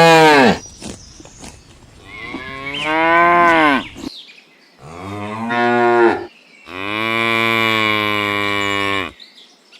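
Cow mooing: the tail of one moo in the first half-second, then three more moos, the last and longest held at a steady pitch for over two seconds.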